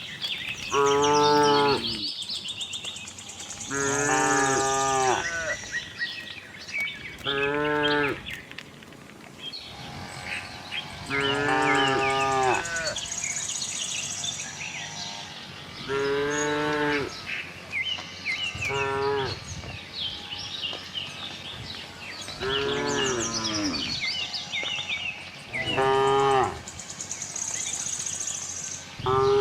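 Cows mooing again and again, about nine separate calls of roughly a second each, with high chirping running underneath.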